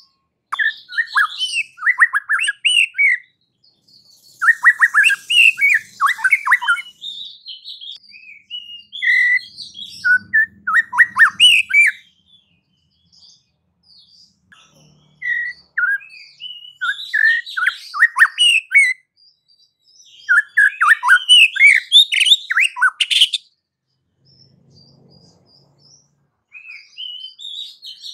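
White-rumped shama (murai batu) singing: bouts of rapid, varied whistled phrases full of falling notes, broken by short pauses. The song is loud and full, the vigorous 'gacor' song used to provoke other shamas.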